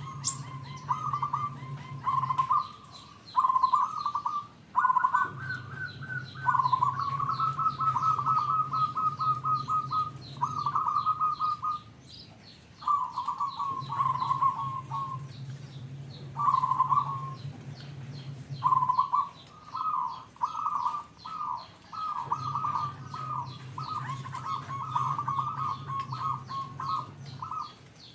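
Zebra dove (perkutut) calling: repeated phrases of quick, trilled cooing notes at a fairly steady pitch, separated by short pauses.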